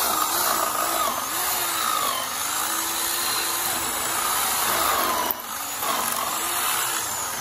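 Corded Ryobi electric drill boring out a hole in a steel bracket, its motor pitch wavering as the bit bites under load. The drill stops briefly about five seconds in, then starts again.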